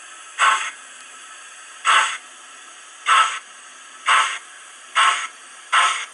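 Model steam locomotive sound decoder playing the exhaust beat of a Manning Wardle 2-6-2T through the model's small speaker as it pulls away: six steam chuffs that come closer together as the engine accelerates, over a steady faint hiss.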